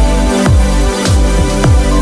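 Electronic background music with a steady beat, about two deep kick drum hits a second, over held synth notes.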